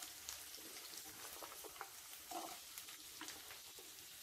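Sliced onions sizzling faintly in a little hot oil in a ceramic-coated frying pan, with scattered light crackles and a few soft knocks.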